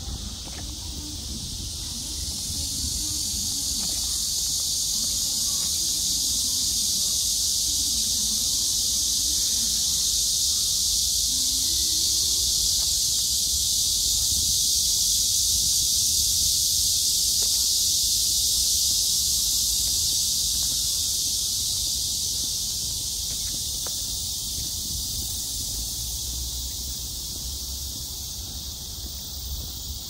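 Dense, high-pitched insect chorus from the trees, a steady buzzing hiss that swells louder toward the middle and fades near the end.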